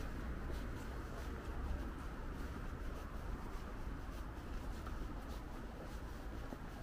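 Quiet city street ambience: a steady low hum of distant urban traffic, with faint footsteps on the pavement at a walking pace of about two steps a second.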